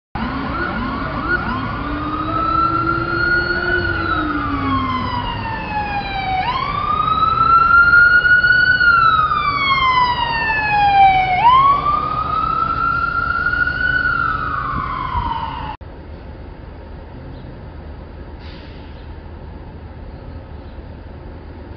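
Ambulance siren in wail mode, each cycle rising quickly and falling slowly over about four seconds, with a lower tone beneath it in the first few seconds. It cuts off suddenly about 16 seconds in, leaving quieter steady street traffic noise.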